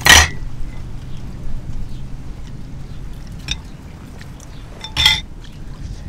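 Clinks against a glass bowl as a skewer of food is dipped in green seafood dipping sauce: a sharp clink with a brief ring at the start, faint taps after it, and another sharp clink about five seconds in.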